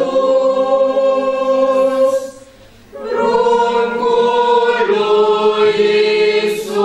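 Group of children and adults singing a Romanian Christmas carol unaccompanied, in long held notes, with a short break between phrases about two seconds in.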